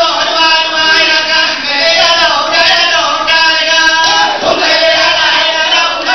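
A group of voices chanting in unison, singing held notes that slide from pitch to pitch, to accompany an Acehnese seated group dance.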